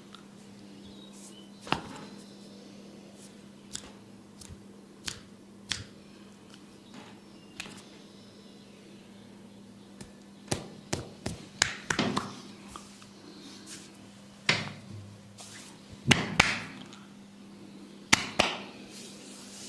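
Head massage: irregular sharp taps and clicks on the head, single at first and then in quick clusters, over a steady low hum.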